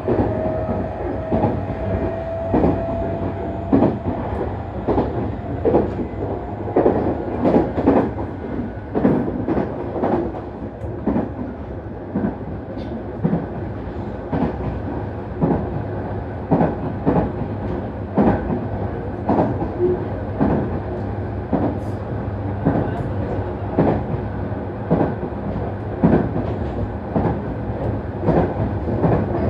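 Nankai Main Line express train running at speed, heard from aboard: a steady rumble broken by frequent, irregular clacks of the wheels over rail joints. A faint whine rises slightly in the first few seconds.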